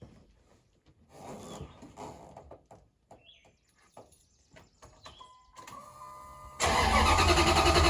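Faint clicks and a brief steady tone, then about six and a half seconds in the Dodge Ram's 4.7 L V8 turns over on a cold start and runs loud and even through a true dual exhaust with Flowmaster 40 Series mufflers.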